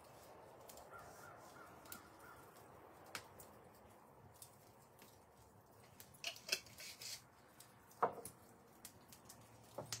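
Quiet handling sounds as seasoning is shaken from a small jar over a whole chicken in a wooden bowl, with a few faint clicks and a knock about eight seconds in as the jar is set down on the wooden stool.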